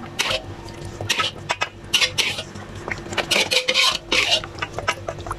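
Wooden spoon stirring a thin rice-flour batter in a stainless steel bowl, scraping and knocking against the metal in short, uneven strokes about every half second to a second.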